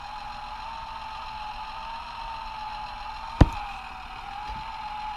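Electronic sound effect from the small speaker of a Blaze and the Monster Machines Zeg die-cast toy truck, played between its "want to race" and "Go!" lines: a steady, slightly wavering tone over a hiss. A single sharp click sounds about three and a half seconds in.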